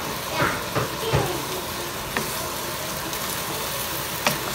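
Stir-fried instant noodles with beef and broccoli sizzling steadily in a nonstick pan as they are tossed with a wooden spatula, with several knocks and scrapes of the spatula against the pan.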